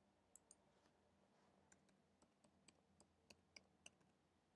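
Faint computer keyboard typing: about eight separate key clicks roughly a quarter second apart in the second half, after two light clicks near the start, against near silence.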